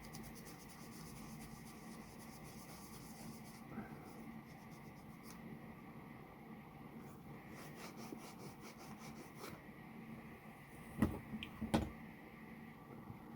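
Fast, even rubbing strokes of hand buffing a carnauba cream finish, coming in spells, followed by two light knocks near the end.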